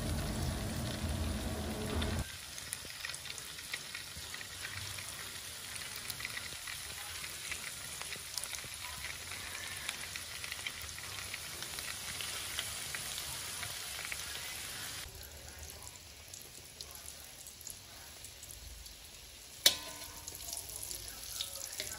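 Battered cheese sausages deep-frying in hot oil in a steel wok: a steady crackling sizzle. A single sharp metal clink of tongs against the wok comes near the end.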